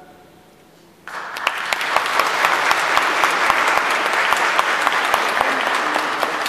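The last chord of the choir dies away in the church's echo, then about a second in the audience breaks into steady applause.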